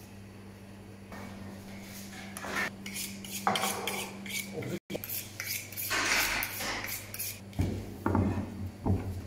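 Butchering sounds on a plastic cutting board: a knife clicking and scraping and pieces of wild boar meat being moved and slapped down, in irregular bursts with heavier thuds near the end. A steady low electrical hum runs underneath.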